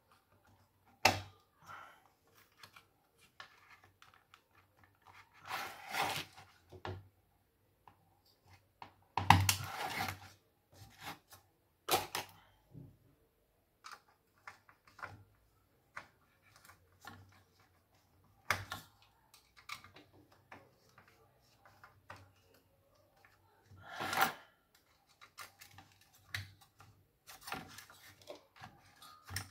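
Handling noise of a CPU cooler being set onto a motherboard and cables being moved on a workbench: irregular clicks, taps and short scrapes of plastic and metal, with a few louder knocks and rustles scattered throughout.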